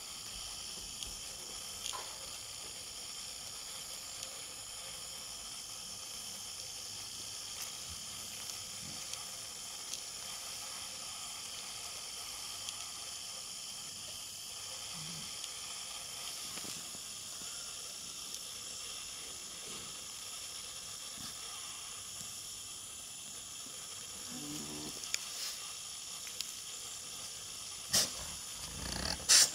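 Steady high hiss of outdoor background noise, broken by a few faint ticks; near the end there is a short low hum and two sharp clicks.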